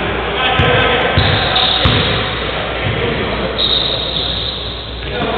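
A basketball being dribbled on a gym floor, bouncing about every two-thirds of a second in the first half, amid a steady hall din of players' voices.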